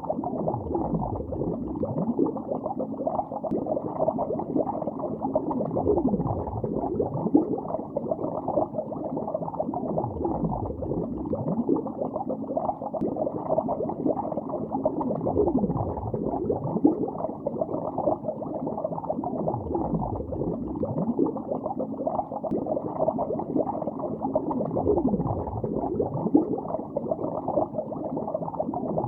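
Continuous underwater bubbling and gurgling, muffled with no high end, with a deeper swooping gurgle about every five seconds.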